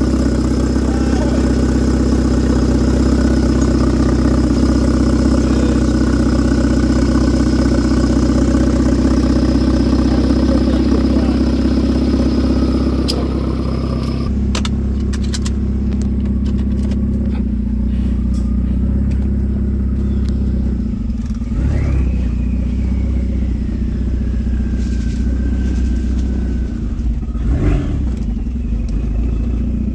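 Audi A4 B6's twin-turbocharged four-cylinder engine running steadily. About two-thirds of the way in a high whine rises sharply and then slowly falls away, and near the end there is a short surge like a blip of the throttle.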